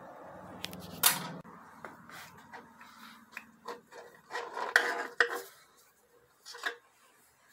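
Steel clutch plates of a 6R80 automatic transmission's intermediate clutch C pack clinking and scraping against the metal case as they are pulled out by hand. There is a sharp clink about a second in, a cluster of clinks around the middle and one more near the end.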